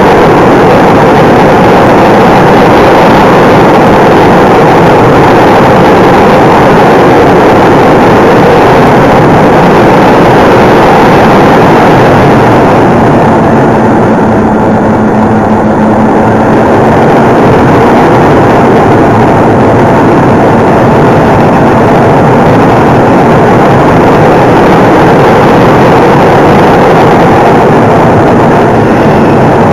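Onboard sound of a Parkzone de Havilland Mosquito electric RC model in flight: propeller and motor noise mixed with wind rushing past the camera, loud and steady. For a few seconds around the middle a steady hum comes through while the hiss thins, then the full rush returns.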